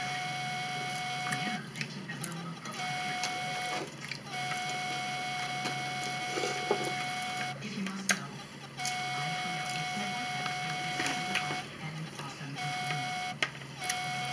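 A steady electronic whine at several fixed pitches that cuts out several times for up to about a second and then resumes.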